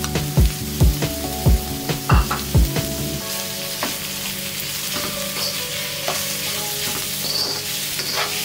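Minced beef sizzling in hot oil in a wok with diced onion and garlic, stirred with a metal spatula that clicks and scrapes against the pan now and then. Background music with a steady beat plays over it for the first three seconds or so, then fades to a faint hum.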